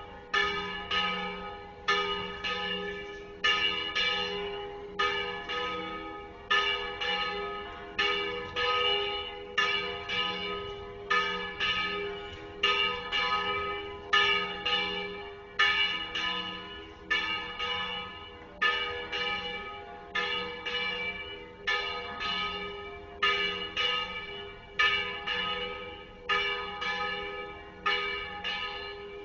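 Church tower bells of the Iglesia de Santiago ringing: a steady, rapid succession of strokes, each ringing on and overlapping the next.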